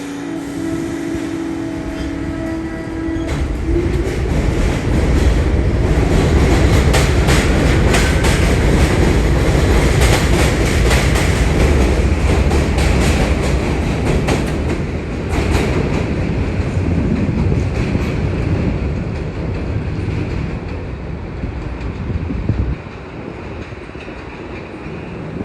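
New York City subway train running past: a loud rumble with rapid clacking of wheels over rail joints. It swells over the first few seconds and dies away well before the end, with a steady tone heard during the first three seconds.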